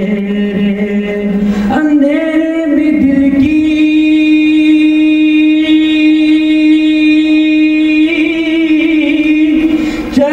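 A man's solo voice singing a naat, Urdu devotional verse, into a microphone. A shorter lower note gives way about two seconds in to one long held high note that lifts a little near the end.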